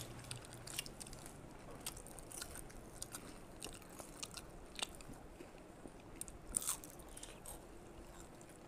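People chewing and biting into crisp jalebi: faint, irregular crunches and mouth clicks, a few louder bites around the middle.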